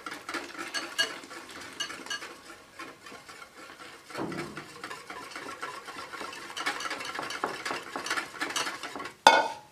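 Stirring in a mixing bowl, the utensil clicking and scraping against the bowl as hot lemon juice is worked into the eggs and sugar to temper them. A brief louder clatter near the end.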